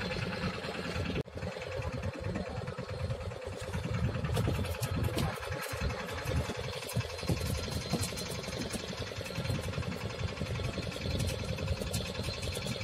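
Fishing boat's engine running steadily, with a brief cut-out about a second in.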